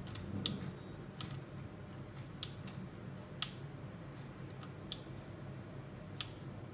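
About six sharp, irregularly spaced plastic clicks as a toy RC spray car is handled and turned over, over a faint steady low hum.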